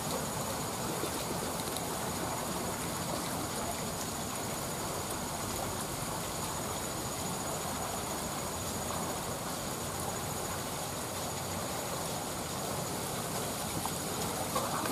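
Steady rushing of a swollen, fast-flowing muddy river, an even wash of water noise.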